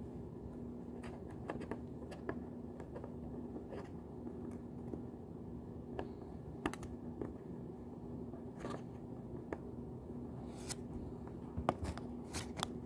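Small scattered clicks, ticks and scrapes of a plastic pry tool working along the glued seam of a Sony WF-1000XM4 earbud's plastic shell as the adhesive gives way, with a few sharper clicks near the end.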